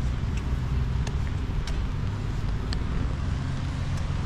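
Steady low rumble of distant road traffic, with a few faint ticks scattered through it.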